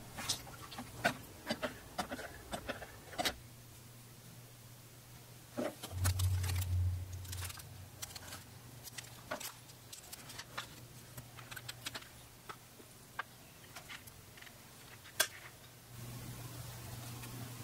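Scattered light clicks and taps as hands handle a steel karambit blade, its stencil film and masking tape on a cutting mat, over a low steady hum that swells briefly about six seconds in.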